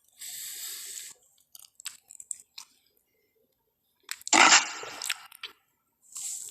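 Pachycephalosaurus creature sound effects: a short breathy hiss, a few scattered clicks, then about four seconds in a loud, sudden grunting burst that quickly dies away.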